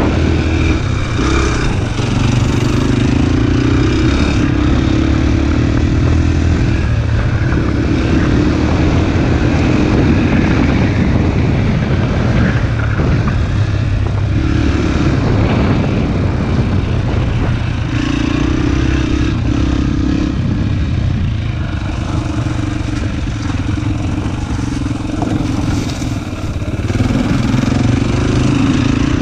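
Dirt bike engine running under way on a trail, heard from the rider: its pitch rises and falls as the throttle is opened and closed every few seconds.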